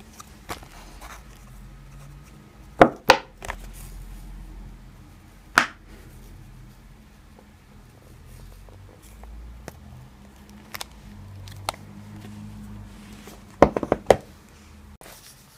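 A glass honey jar and its lid being handled: a few scattered clicks and knocks, a loud pair about three seconds in and a quick cluster near the end, with quiet in between.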